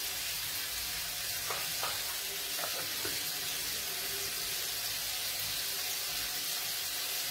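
Cherry tomatoes sizzling steadily in a frying pan, with a few light clicks in the first three seconds.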